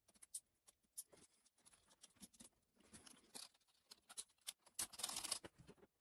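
Near silence with faint scattered light clicks and a few short scrapes, the longest about five seconds in.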